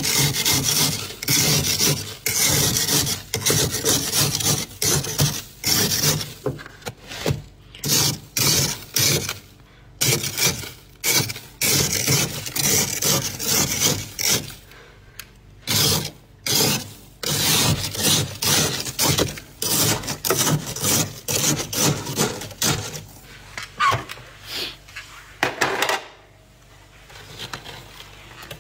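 Built-up freezer frost being scraped with a utensil, in quick repeated rasping strokes that thin out near the end.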